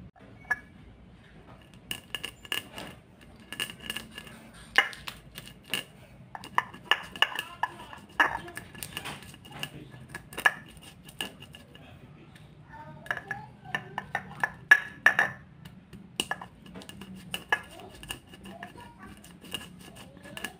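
Stone pestle (ulekan) pounding and grinding white peppercorns, candlenuts and garlic on a flat stone mortar (cobek): irregular sharp knocks and cracks of stone on stone, starting about two seconds in.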